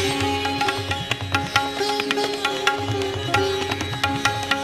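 Indian-style instrumental background music: quick plucked string notes over a steady drone, with a hand-drum pulse underneath.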